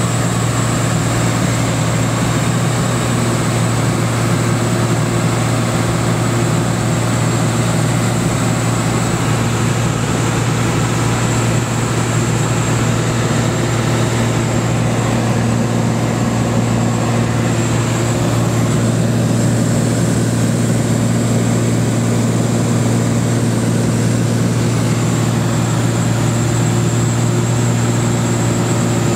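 Columbia 350's six-cylinder Continental IO-550 piston engine and propeller droning steadily in flight, heard inside the cabin with a strong, constant low hum.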